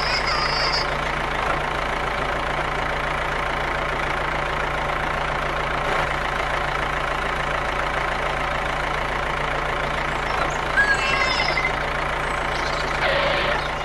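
Tractor engine idling steadily, an even engine sound without change. A brief high warbling sound rises over it about eleven seconds in.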